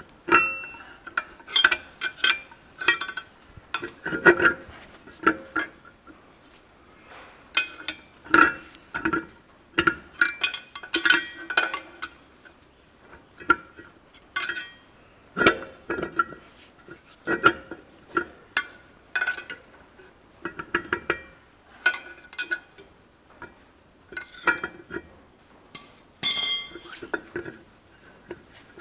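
Irregular metallic clinks and knocks, with short rings, as a heavy tractor front hub is shifted and levered against its axle housing with a metal bar to line up its bolt holes.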